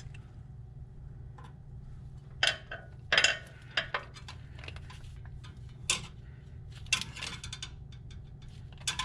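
Hand tools clicking and clinking on metal in scattered short bursts as the wire nuts on a car starter's terminals are tightened, over a steady low hum.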